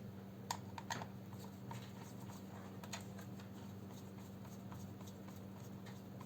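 Small screwdriver turning a screw into a netbook's plastic case: faint, scattered clicks and ticks, a few sharper ones in the first second.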